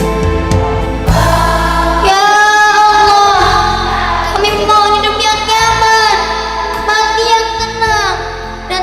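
Devotional music: an instrumental passage, then from about two seconds in a group of voices sings long, held notes over it, fading near the end.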